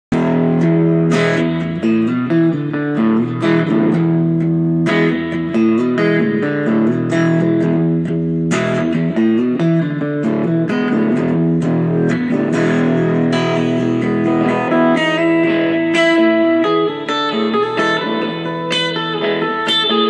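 Solid-body electric guitar jamming in E: picked chords over held low notes, shifting to higher single-note lead lines about 15 seconds in.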